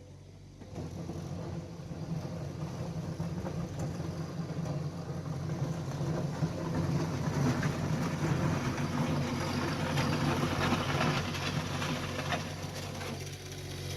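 Skid steer engine running under work, getting louder about a second in, with gritty scraping and crunching as the bucket works over stone.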